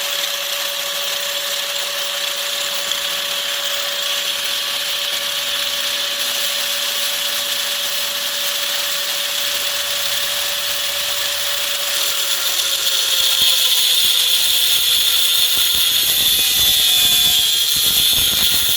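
Small high-speed power tool cutting through a stainless-steel knife blade, its motor running steadily with a hissing cut. About two-thirds of the way through the pitch sags slightly and the sound gets louder as the tool bears into the steel.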